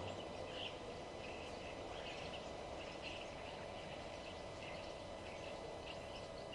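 Wild birds chirping, many short high calls coming several times a second, over a steady background hiss.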